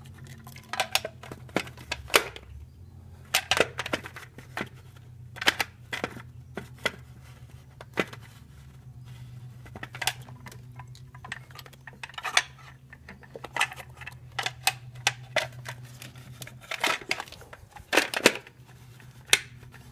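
Distributor cap and plug wires being handled and fitted onto the distributor: irregular clicks and knocks of hard parts, some in quick clusters, over a low steady hum.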